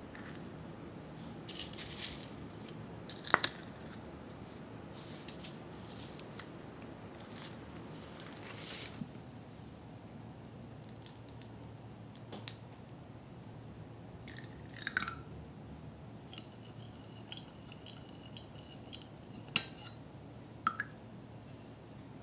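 Quiet kitchen handling sounds. Set gelatin balls are pushed out of a plastic ball mould with soft squishes and scattered clicks and knocks. Then chocolate syrup goes into a small glass measuring jug, with light clinks of glass and a faint high ringing for about three seconds late on.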